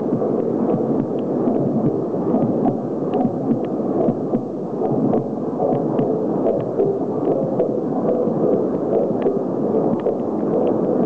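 Recorded human heartbeats played loud over loudspeakers, many overlapping into a steady low rumble with a long echo from a vast hall.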